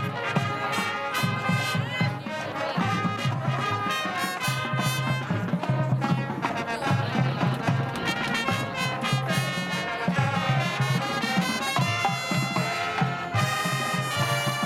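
Music led by brass instruments, trumpets and trombones playing a moving melody over a steady low bass line.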